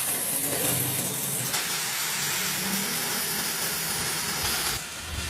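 Steady loud hiss of workshop machinery, with a low hum underneath; it eases off near the end.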